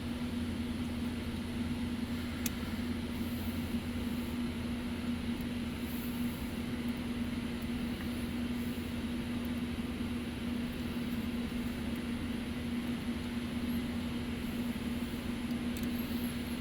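Steady mechanical hum holding one even pitch, with a single faint click about two and a half seconds in.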